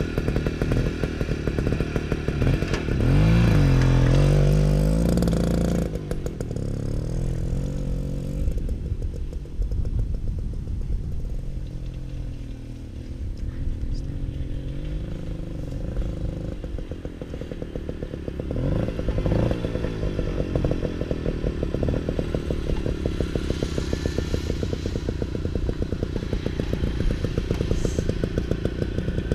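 A 1978 Zündapp ZD 25 moped's small two-stroke single-cylinder engine revving up as it pulls away about three seconds in. The sound fades as the moped rides off into the distance, then grows louder again as it rides back and runs close by near the end.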